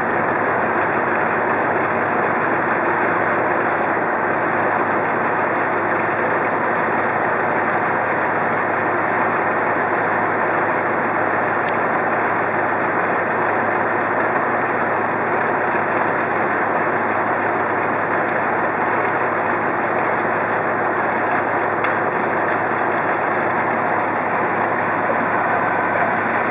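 Heavy machinery engine running steadily at an even level throughout.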